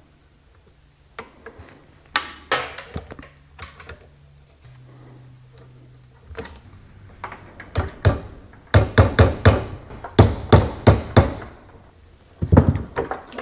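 Claw hammer tapping a metal retaining clip onto a parking brake cable end held in a bench vise. A few light clicks of the parts being fitted by hand come first, then in the second half a run of sharp taps, several a second.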